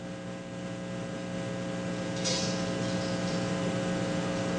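Steady mains hum on a live television audio feed: a low electrical buzz with a stack of even overtones. A brief soft hiss comes a little over two seconds in.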